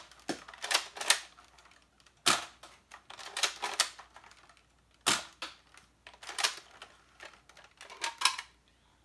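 Nerf Longstrike spring blaster being primed and fired: sharp plastic clacks and snaps from its bolt and the spring-driven shots. They come in quick clusters of two or three, a second or two apart.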